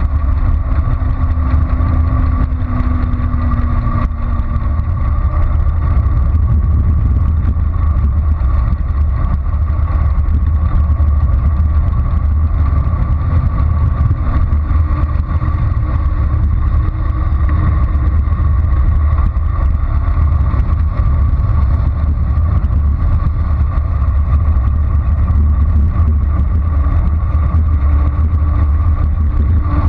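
Wind buffeting a GoPro microphone on a moving bicycle: a loud, steady low rumble with a faint steady whine over it.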